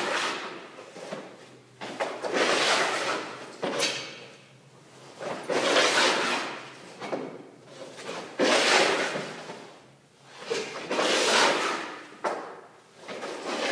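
Hockey goalie's skate blades scraping across the surface as he pushes from post to post, a swell of scraping every two seconds or so.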